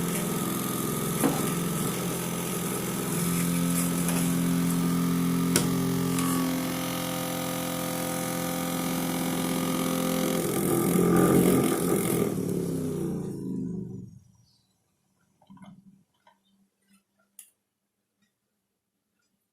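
Homemade vacuum cleaner driven by a 12 V DC mini drill, its motor and fan running with a steady hum, then switched off and winding down to a stop about thirteen seconds in. A few faint knocks follow.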